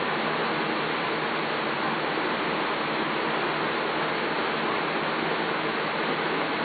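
Steady, even hiss with nothing else standing out.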